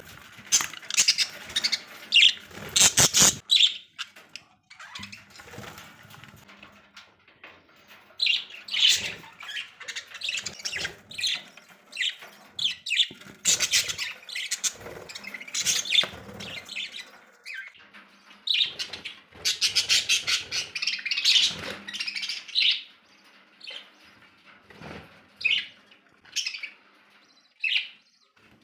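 Pet budgerigars chirping and chattering in short, irregular bursts of high calls, with wing flapping.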